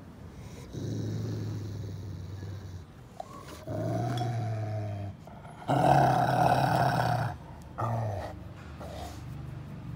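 Dog growling low and drawn out while its head is rubbed: four grumbles, the third the loudest and the last a short one.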